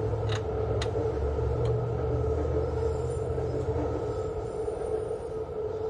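Steady mechanical hum with a constant drone and a low rumble underneath. There are a few short, light clicks in the first two seconds, typical of bolts and tools being handled while a motor mount is threaded in by hand.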